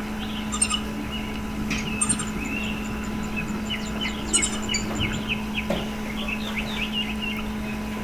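Songbirds chirping, with many quick short chirps and high rapid twittering bursts about half a second, two and four seconds in, over a steady low hum.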